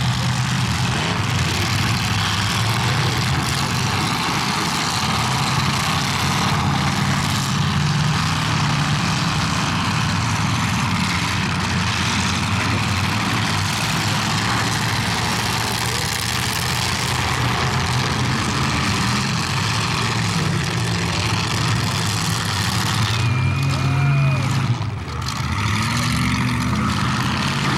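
Several demolition derby cars' engines running and revving together, with pitches rising and falling as the cars drive and ram.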